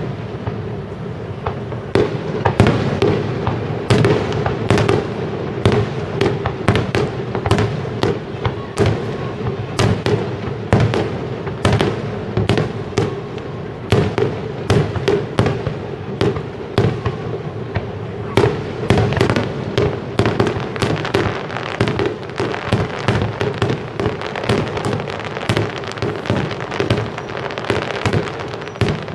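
Aerial firework shells bursting in quick succession: dozens of sharp bangs and crackles, many overlapping, one after another without a break.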